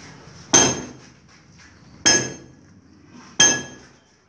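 Three sharp hammer blows about a second and a half apart, each with a brief metallic ring, typical of steel striking steel or a block during block-wall work.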